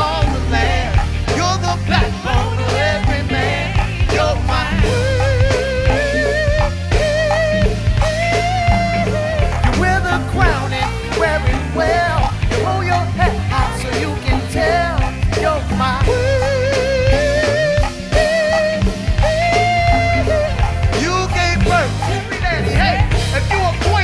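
Live go-go band music: a wavering lead melody with vibrato over a steady drum beat and heavy bass.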